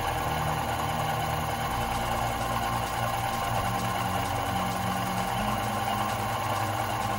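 Grizzly manual vertical milling machine face-milling a 6061 aluminum block: a steady machine hum with a constant whine as the spinning face mill cuts across the surface.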